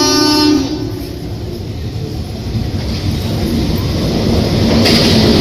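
Electric locomotive horn ends in a brief buzzing honk about half a second in. Then the rumble of the approaching express train grows steadily louder, with a hiss of wheels on rails rising sharply near the end as it reaches the platform.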